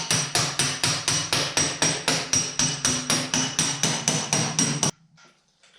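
Rapid, even hammer blows on sheet-steel body panel, about five strikes a second with a metallic ring, stopping abruptly near the end: dent work on a car door.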